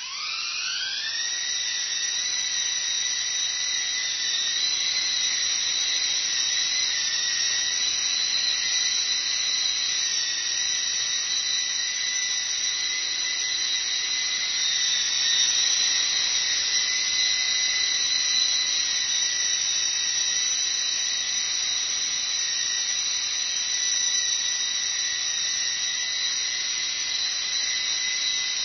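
Esky Lama v3 coaxial RC helicopter's electric motors and twin rotors spinning up, the whine rising in pitch for about the first second, then holding a steady high whine as it lifts off and flies.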